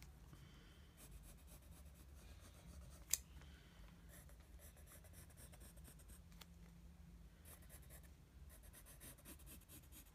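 Faint scratching of a yellow pencil's graphite tip drawing lines on lined notebook paper, coming in clusters of strokes. One sharp click about three seconds in.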